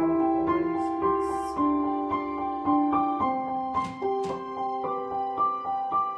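Background piano music: a gentle melody of single sustained notes.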